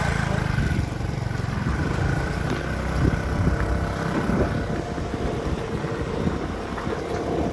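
Motorcycle engine running under load on a rough dirt road, with irregular knocks and rattles from riding over the bumps.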